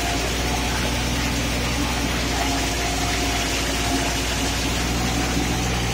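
Kubota MU4501 tractor's diesel engine running steadily under load, driving a PTO rotavator through wet, muddy soil, with a thin steady whine over the engine note.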